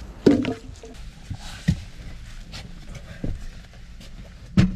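Four dull knocks spread over a few seconds, the loudest at the start and near the end, over a low background.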